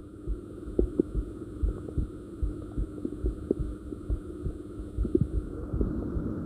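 Human heartbeat recorded close to the body: a regular lub-dub of paired low thumps, about seventy beats a minute, over a steady low hum.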